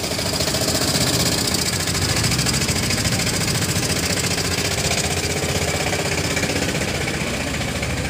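Vehicle engine running steadily close by at low speed, with a fast, even pulsing beat.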